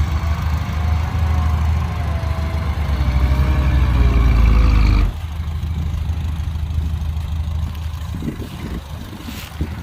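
An engine running steadily, growing louder and then dropping suddenly to a quieter level about five seconds in.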